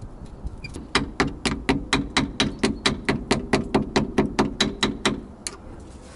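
A hammer tapping quickly on steel at the front brake caliper, about four light blows a second for roughly four seconds, which fits bending back the lock-plate tab on the caliper bolts.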